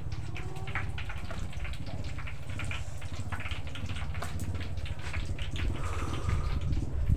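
Food being stirred and turned in a wide pan over a wood-fired clay stove: many irregular crackles and scrapes over a steady low rumble.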